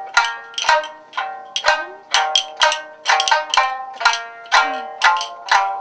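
Traditional Japanese music on a plucked string instrument: separate, sharply plucked notes at about two a second, each ringing and fading, with a few short sliding tones between them.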